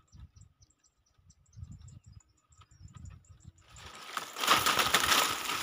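Faint scattered thumps of a hand-held phone, then from about four seconds in a loud rush of rustling and wind noise as the phone is carried quickly through the leaves and out into the rice field.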